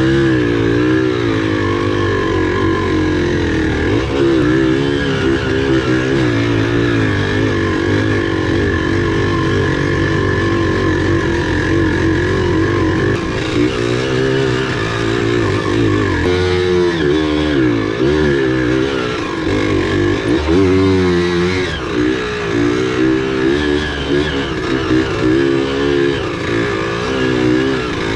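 Off-road motorcycle engine running under constantly changing throttle, its pitch rising and falling every second or so, with a couple of deeper drops and pick-ups in the second half.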